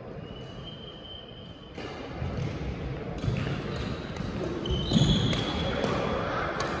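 Badminton play in a sports hall: a few sharp racket hits on the shuttlecock and high squeaks of shoes on the court floor, over a low hubbub of the hall.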